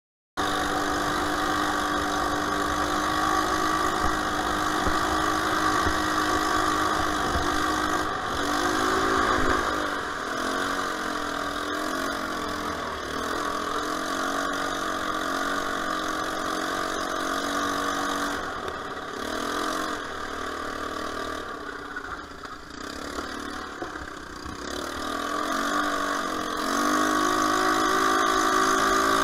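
Off-road vehicle's engine running as it is ridden over a rough dirt track, the revs rising and falling again and again, then steadier and a little louder near the end.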